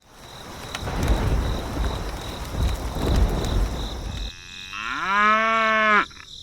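A low rumbling noise with no clear pitch, then a cow mooing once, long, rising at first and then held level before stopping abruptly.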